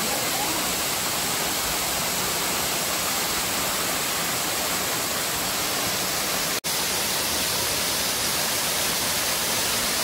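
Waterfall cascading down a rock face, a steady even rush of falling water, running full after heavy rain the day before. It breaks off for an instant about two-thirds of the way through.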